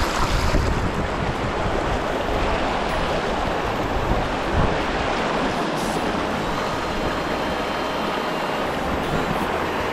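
Shallow river running fast over a gravel and stone riffle: a steady rush of water.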